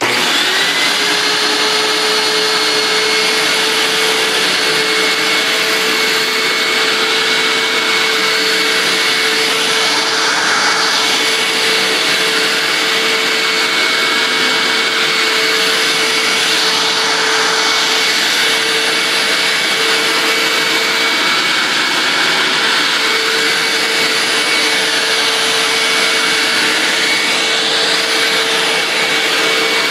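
Hoover WindTunnel self-propelled upright vacuum cleaner switched on, its motor spinning up to a steady whine within the first second, then running steadily at full speed.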